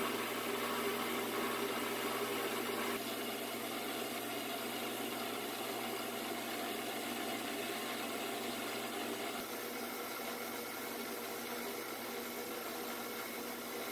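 Metal lathe running steadily, its spindle and gearing humming as a tool turns down the outer diameter of bar stock held against a tailstock live center. The tone shifts slightly twice.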